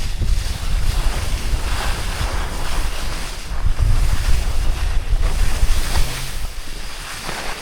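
Wind buffeting the microphone during a fast downhill run: a heavy, gusting low rumble over a steady rushing hiss.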